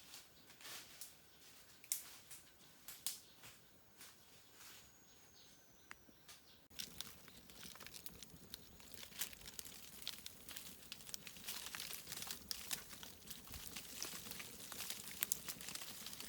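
Irregular small crackles and crinkles, as of dry material being handled or crushed, sparse at first and then denser and louder after an abrupt change about seven seconds in.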